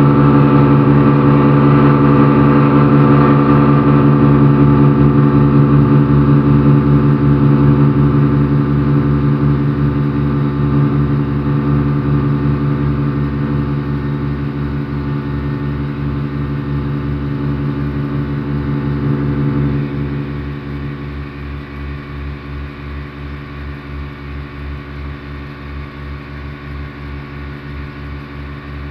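Twin outboard motors on a speedboat running at speed: a steady, even-pitched drone with a slow pulsing underneath. It fades gradually and drops noticeably about two-thirds of the way through, with the pitch unchanged.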